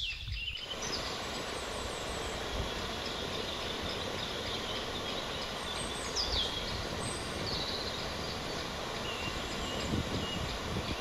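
Steady rush of water pouring through the spillway gates of a river lock and dam, with a few short bird chirps above it.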